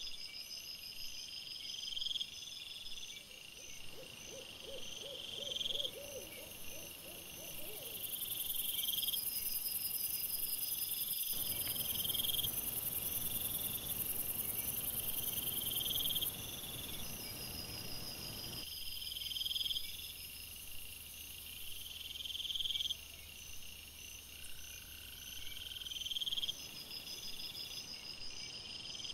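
Insects chirping at night in short high pulses, roughly one a second, without a break. A stretch of louder steady hiss sits under them through the middle, starting and stopping abruptly.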